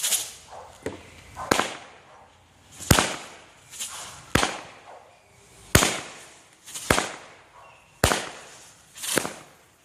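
A Dominator Silver Cyclone firework shooting off a series of sharp reports, about one a second, some with a brief hiss before the bang.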